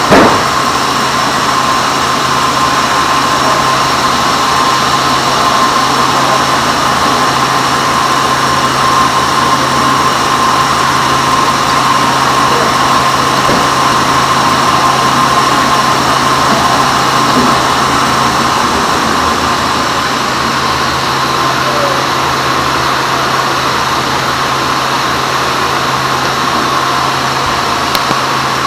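Sawmill band saw running steadily with a constant high tone over its machine noise, sawing teak wood. A short loud knock comes right at the start.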